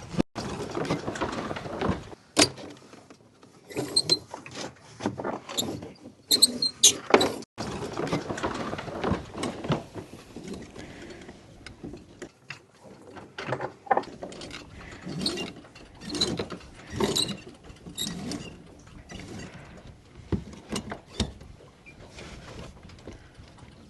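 Sailboat rigging and sail handling as the sails go up: irregular clicks, knocks and rustling bursts from the hardware and canvas, with no steady engine or tone.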